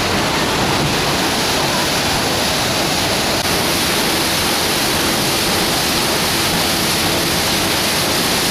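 Stern paddlewheel of the steamboat Natchez churning river water: a loud, steady rush of splashing water.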